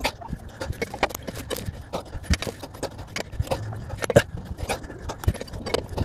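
Irregular clicks and knocks of a long-handled wrench and socket being worked on a semi truck's front-wheel lug nuts, several a second.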